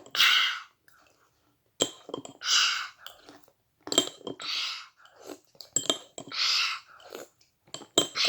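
Close-up chewing of Maltesers chocolate malt balls, in short noisy bouts with small clicks, about one every two seconds.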